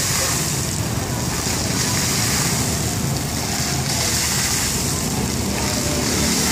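Fountain's vertical water jet splashing down into its basin: a steady rushing hiss that swells and eases as the jet changes height, over a low rumble.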